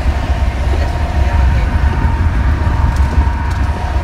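Steady low rumble of road and wind noise inside a car driving at highway speed.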